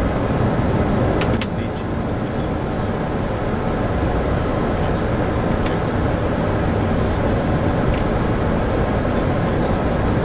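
Steady rushing flight-deck noise of a Boeing 737-800 in flight on approach, with a few faint clicks.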